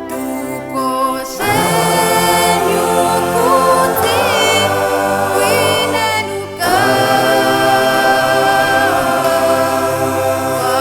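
A choir singing a gospel song in close harmony, seemingly without instruments, in sustained phrases with short breaks about a second and a half in and again about six and a half seconds in.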